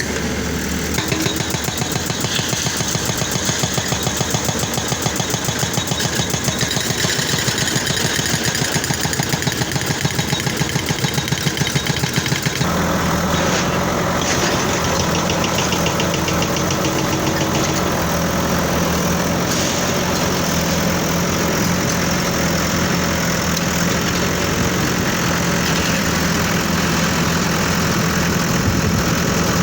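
Excavator's diesel engine running with a fast, even pulsing; about 13 s in the sound changes abruptly to a steadier, deeper engine hum.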